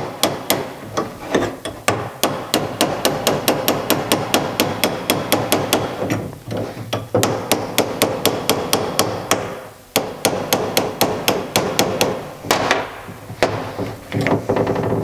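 Ball-peen hammer tapping a steel pin punch in quick repeated strikes, about four or five a second, with a few brief pauses, driving a locating pin out of a magnesium Porsche 911 oil pump housing.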